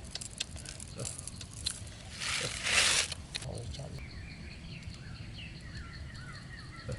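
Rustling and scratching with scattered small clicks, a longer scraping rustle about two and a half seconds in, then faint high chirping.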